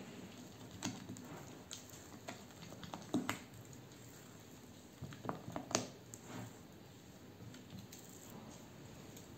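Silicone spatula stirring thick chocolate cake batter in a glass bowl: soft wet squishing with scattered light taps and scrapes of the spatula against the glass, the sharpest about one, three and six seconds in.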